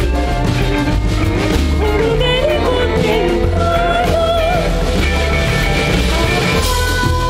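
Female vocalist singing a gliding melody in an invented, wordless-sounding language over a live band with a pulsing bass line. Near the end a held flugelhorn note comes in.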